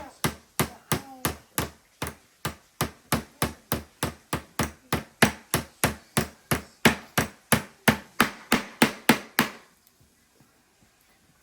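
A small hammer repeatedly striking a block of ice, about three sharp knocks a second, steady and even, then stopping suddenly near the end.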